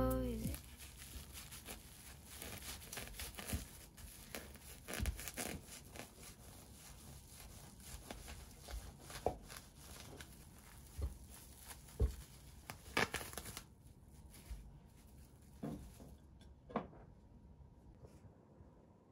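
Faint crinkling and crackling of cling film as a kitchen knife cuts through a plastic-wrapped egg sandwich on a wooden board, with a few light knocks; it goes quieter about two-thirds of the way through.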